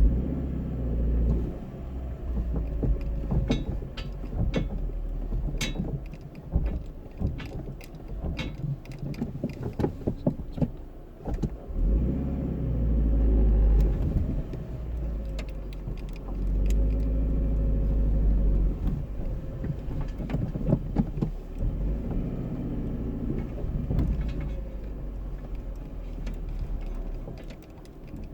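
A car running, with a low rumble that swells and fades several times and a faint tone that rises and falls with it. Between about 3 and 11 seconds in there is a run of irregular clicks and knocks. It is the odd noise the owner is trying to show, cause unknown.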